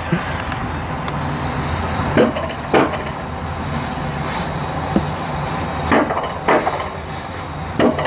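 Alpine coaster sled running along its metal rail track: a steady rumble with several short, sharp knocks.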